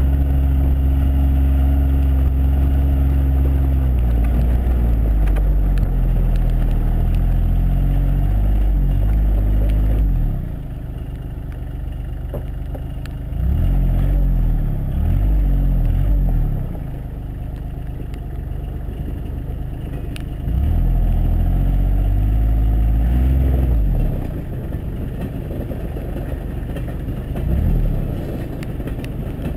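John Deere Gator 855D's three-cylinder diesel engine working hard through soft, slippery mud, its note rising and falling as the throttle is opened and eased. Three times it drops quieter for a few seconds, around a third of the way in, past the middle and near the end.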